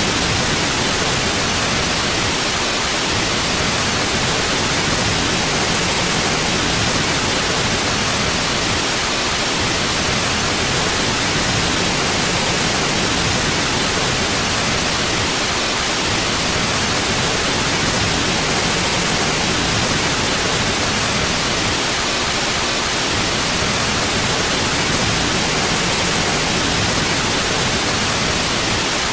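Steady, unchanging white noise: an even hiss across the whole range with no breaks or changes in level.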